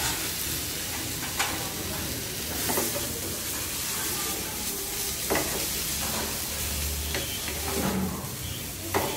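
Wooden spatula stirring and turning raw rice dusted with powdered milk in a nonstick frying pan over a gas flame, with a steady hiss and a few sharp knocks of the spatula against the pan.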